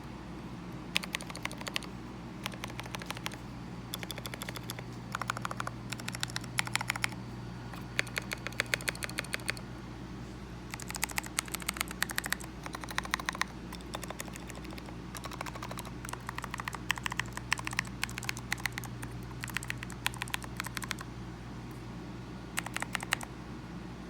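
Mechanical keyboard with clicky blue switches being typed on in quick bursts of sharp keystroke clicks, with short pauses between bursts. A low steady hum runs underneath.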